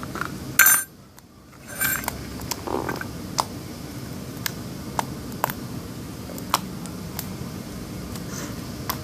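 Sticky homemade slime being kneaded by hand, giving scattered small clicks and pops as it sticks and pulls away, with a louder crackle just under a second in followed by a brief drop to near quiet.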